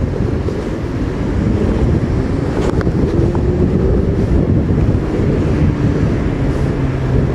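Wind buffeting the microphone, loud and steady, with a faint hum in the background that rises slowly in pitch through the middle.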